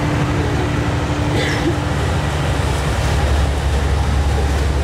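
Vaporetto water bus's diesel engine running steadily underway, a low drone under a steady hiss; the engine note deepens about three seconds in.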